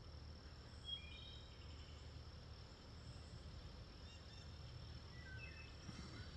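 Near silence: faint outdoor ambience with a steady high insect trill, like crickets, and a few faint short bird chirps.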